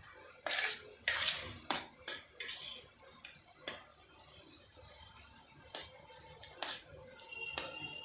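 Cutlery scraping and clinking against a dish of noodles while eating: a quick run of short scrapes in the first three seconds, then a few sparser clinks, one leaving a brief ring near the end.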